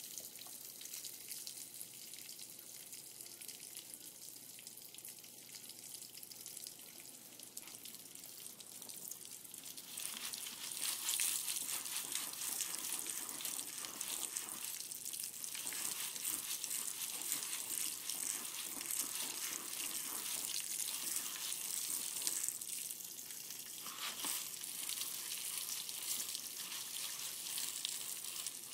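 Jiffy Pop foil pan heating on a stove burner: a steady frying sizzle of the oil and kernels that grows louder about ten seconds in, the stage before the corn starts to pop.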